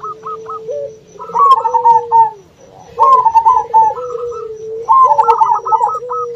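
Several zebra doves cooing in overlapping bursts about every two seconds: rapid runs of short staccato notes over a lower rolling coo that falls away at its end.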